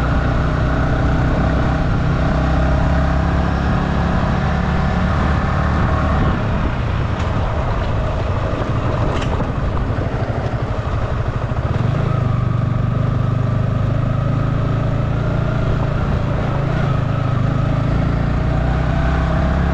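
Motorcycle engine running steadily at low road speed in a low gear, heard from the rider's seat with wind and road noise. The engine eases off partway through, then pulls steadily again.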